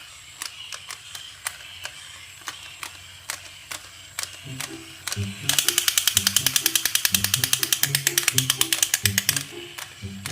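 Scattered sharp clicks, then background music that comes in about halfway with a repeating low melody, joined by a fast run of even ticks for a few seconds.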